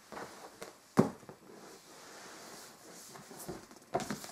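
Books being handled: a sharp knock about a second in, soft rustling, and another light knock near the end.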